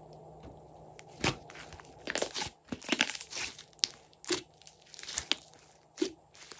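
Glossy slime being stretched, pulled and pressed by hand, giving irregular sticky pops and crackles. They start about a second in and come thickest in the middle.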